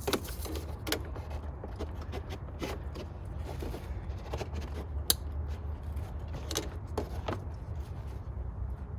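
Irregular clicks, rattles and light knocks of car door trim parts and tools being handled during reassembly, over a steady low hum. The sharpest click comes about five seconds in.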